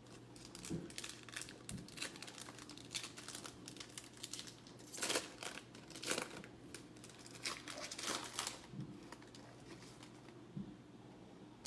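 Plastic trading-card pack wrappers crinkling and tearing as packs are opened and the cards handled, in a run of irregular crackles with a few louder rips.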